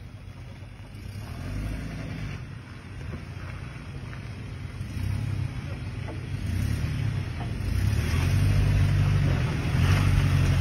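SUV engine running at low revs as the vehicle crawls over rock toward the listener, the revs rising and falling and the sound growing steadily louder as it comes closer.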